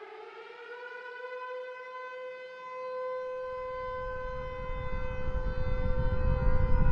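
Civil defense siren finishing its wind-up and holding a steady wail. From about halfway through, a deep rumble builds underneath it and grows steadily louder.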